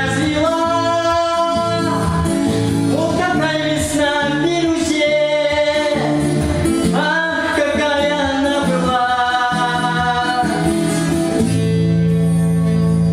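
A man singing long, drawn-out notes over guitar accompaniment. The voice stops about eleven seconds in, and the instruments hold a steady chord to the end.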